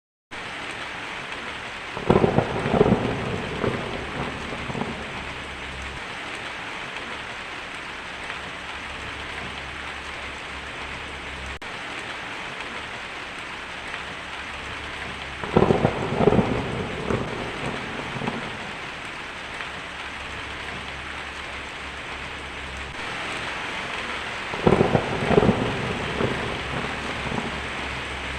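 Heavy rain falling steadily on a tin roof, with three rolls of thunder that rumble for a few seconds each: near the start, about halfway through, and near the end.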